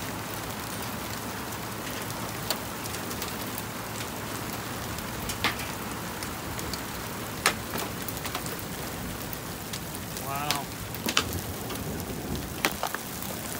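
Hail falling steadily as a hiss, with sharp cracks every second or two as single hailstones, nearly golf-ball sized, strike hard surfaces.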